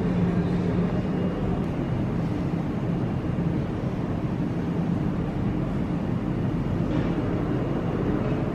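Steady low rumbling drone with a hum running through it: the background noise of an indoor museum gallery.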